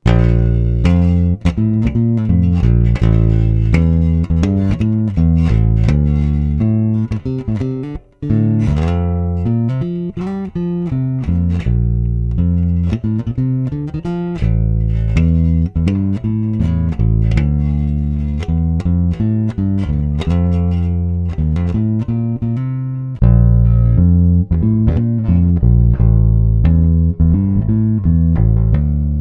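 Five-string electric bass played solo on its front pickup, a plucked bassline of low notes. For most of the passage it is a Bacchus Universe Series WJB5 active five-string Jazz Bass. About 23 seconds in, after a cut, a Bacchus Global Series WL-534 five-string with a 34-inch scale takes over, a little louder.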